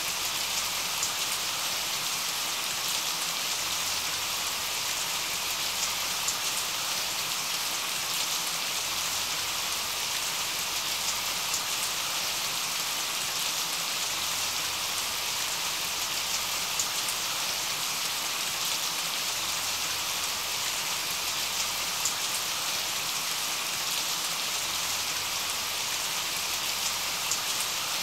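Steady rain falling: an even hiss with scattered louder drop ticks.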